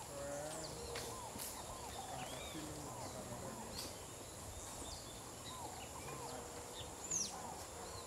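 Woodland animal chorus: many short overlapping calls, repeated arched notes and quick falling whistles, over a steady high insect buzz, with a few sharp ticks.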